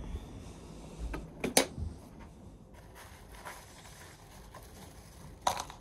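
A few short, sharp clicks and knocks, the loudest about a second and a half in and another near the end, with faint rustling: fried fish pieces being picked off paper towels and dropped into a plastic bowl.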